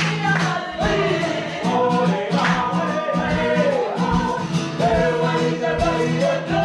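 Māori performers singing a waiata together, several voices at once with a steady low drone beneath.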